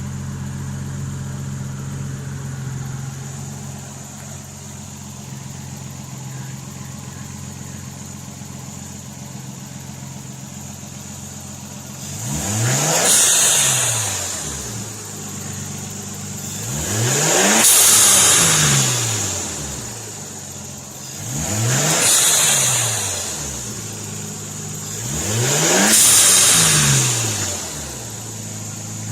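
Nissan Skyline R32's RB20DET turbocharged straight-six idling steadily, then revved four times about every four seconds, each rev rising and falling in pitch. A hiss comes at the top of each rev, from the newly fitted Turbosmart blow-off valve venting.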